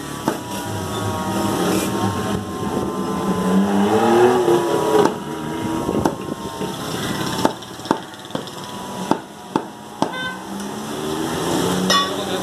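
Butcher's cleaver chopping mutton on a wooden block: sharp single chops, irregular, a second or so apart, with voices talking in the background over steady market noise.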